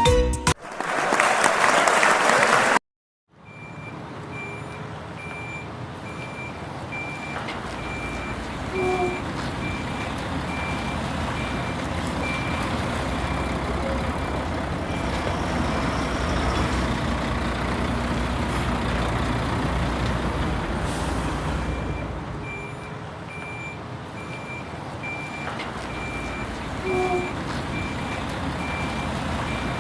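Truck engine noise with a high-pitched reversing alarm beeping at an even pace. The beeps pause for several seconds in the middle while the engine noise runs on. A short loud noise burst and a brief dropout come just before it starts.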